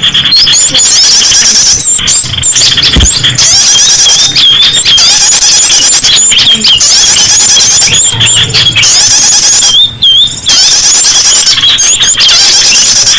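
Loud, dense chorus of many small songbirds chirping and whistling at once, overlapping quick rising and falling calls with no pause: a mixed small-bird lure (pikat) recording made to attract wild birds.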